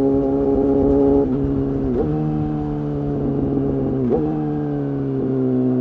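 Suzuki GSX-R750's inline-four engine running through an Akrapovic exhaust and Spark silencer while riding, heard from on the bike. A steady drone with two brief dips in pitch about two seconds apart, then the pitch sinks slowly as the revs come down.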